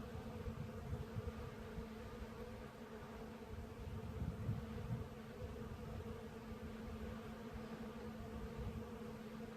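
Bees buzzing in a steady, unbroken hum.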